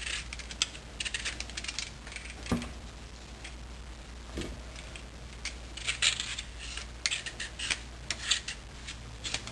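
A knife scraping and peeling raw papaya in irregular short, scratchy strokes, cleaning off the skin and the white inner layer.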